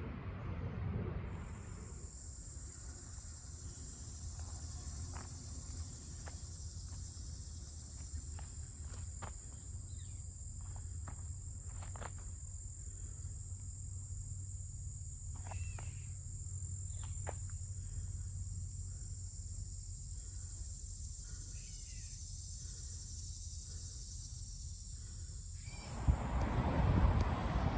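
Insects calling in a steady, high-pitched drone, with a few short bird chirps in the middle; near the end the drone stops and a louder rush of noise takes over.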